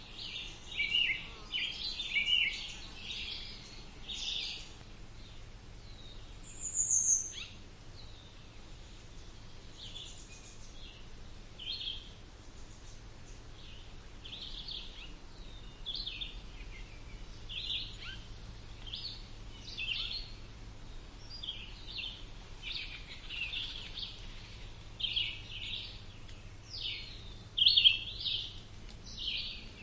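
Several birds chirping and singing in a woodland chorus, short high calls and trills following one another, with a loud high falling note about seven seconds in and a livelier run of calls near the end.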